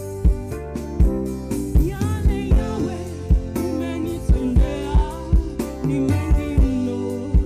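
Gospel choir singing with a live band: sustained chords, bass and a drum kit keeping a steady beat.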